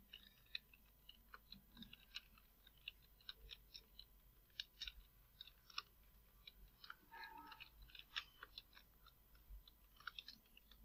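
Faint computer keyboard typing: irregular light key clicks, several a second.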